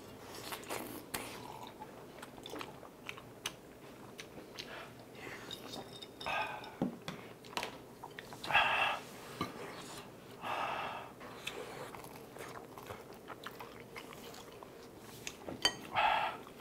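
Close-miked chewing and mouth sounds of people eating, with small wet clicks throughout. About four short huffing breaths are blown out through open mouths, the last near the end, against the heat of very spicy food.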